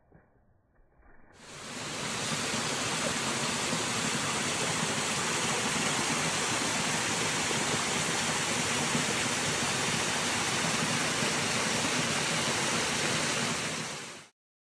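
Waterfall: a steady, loud rush of falling water that starts about a second in and cuts off suddenly near the end.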